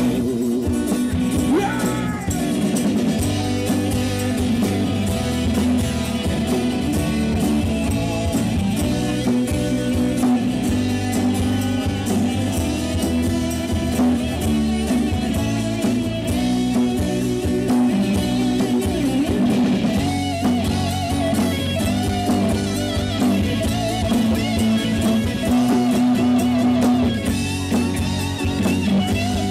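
Live rock band playing an instrumental passage: guitars and drum kit, with a harmonica solo of wavering, bending notes over the top.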